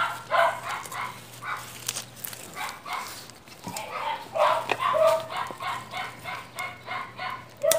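A dog barking over and over, the barks coming quickly, about four or five a second, in the second half.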